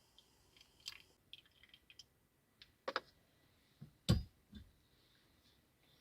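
Scattered light clicks and taps of small objects being handled, with a sharper click about three seconds in and a louder knock just after four seconds.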